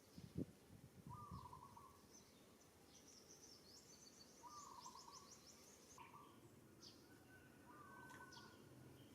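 Faint outdoor bird calls: a short call repeated every second or two, over fainter high chirping.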